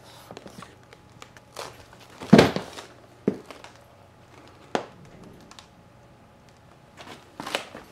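Handling noises from unboxing a subwoofer: packaging crinkling and a few knocks against the cabinet and box, the loudest rustle about two and a half seconds in.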